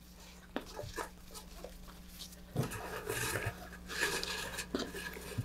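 Rustling and rubbing as a parachute in its Nomex protector is stuffed into a fiberglass rocket body tube and the tube sections are worked together at the coupler, with a few light knocks.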